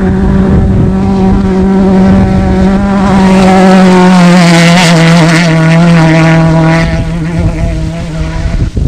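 Off-road desert race vehicle's engine running at high, steady revs as it passes close by, over the rush of tyres and dirt. Its pitch drops slightly about four seconds in, and the sound falls away somewhat near the end.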